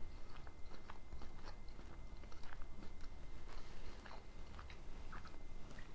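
A person chewing a mouthful of creamy chicken pasta, mouth closed: faint, irregular wet clicks and smacks of the mouth and tongue.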